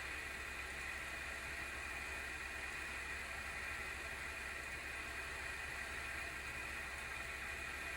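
The single cooling fan (FDC10U12D9-C) of an ASUS GeForce RTX 3060 12GB Phoenix graphics card spinning under benchmark load, a steady whirring noise with a stronger band of sound in the upper middle and a low hum. It is an abnormal fan noise that the owner puts down to a failing fan, either a wobbling shaft or a bearing run dry of oil.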